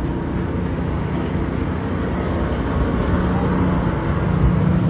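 A motor yacht's engines running steadily underway, a low rumble mixed with wind and water noise; a steady low hum joins in about three seconds in.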